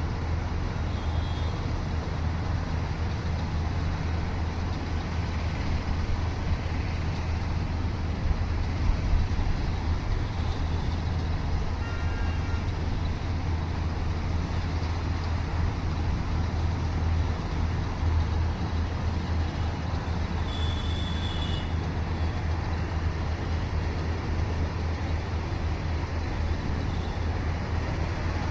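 Combine harvester running steadily, its engine giving a continuous low drone. Two brief high-pitched tones sound over it, about twelve and twenty-one seconds in.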